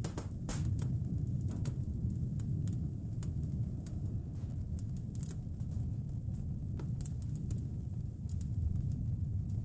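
Wood fire crackling in a fireplace, with irregular sharp pops and ticks, some in quick clusters, over a steady low rumble of wind.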